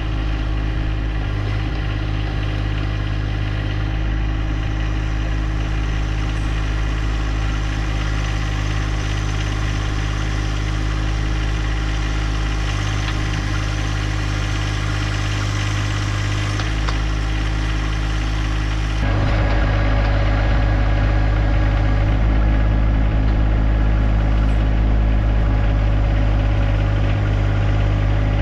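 John Deere 1025R compact tractor's three-cylinder diesel engine running steadily while working the 260B backhoe. A little past two-thirds of the way in, it gets louder and its tone shifts.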